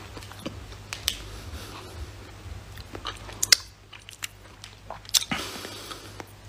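Mouth noises close to a phone microphone: irregular lip smacks and tongue clicks, with a few sharper clicks, the loudest about halfway through and another later on.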